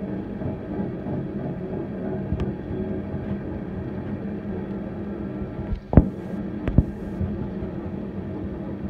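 BNSF coal train rolling past: a steady rumble and hum of freight car wheels on the rails, with two sharp metallic clanks less than a second apart, around six seconds in.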